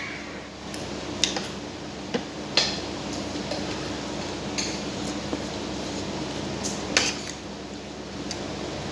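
Spoon and fork clinking against a plate or bowl while eating, about five sharp clinks spread over several seconds, over a steady low hum.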